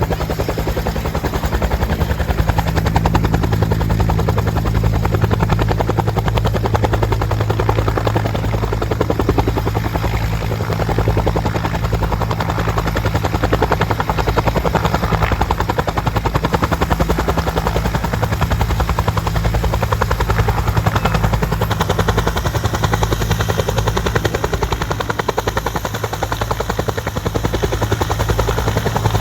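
Bell UH-1D Huey helicopter running at full power: the turbine whine and the steady, rhythmic beat of its two-blade main rotor.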